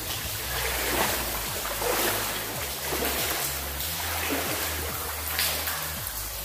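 Footsteps wading through standing water, with a splashing slosh about once a second.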